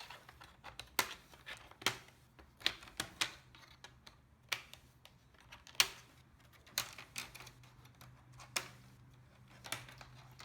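Plastic screen bezel of a Lenovo ThinkPad T520i being pried off with a plastic pry tool: a string of sharp, irregularly spaced clicks and snaps as its clips pop loose.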